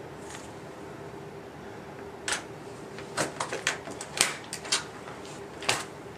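Sharp metal clicks and clacks of a Dynafit Radical ST tech binding being released: the toe-piece latch is unlocked and the TLT 5 ski boot comes free of the pins. There are about a dozen clicks, starting about two seconds in.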